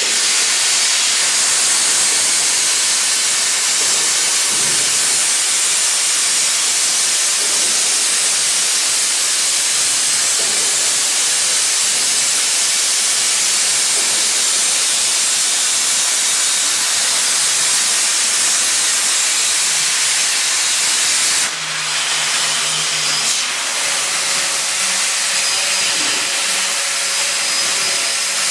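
Plasma torch of a CNC beam cutting machine hissing steadily as it cuts steel. About three-quarters of the way through, the sound changes abruptly and a faint low hum joins the hiss.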